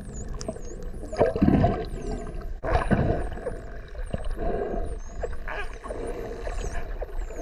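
Bottlenose dolphins whistling underwater: many high, overlapping whistles sweeping up and down in pitch, with scattered clicks. A few louder, lower pulsed sounds come about a second in and again near three seconds.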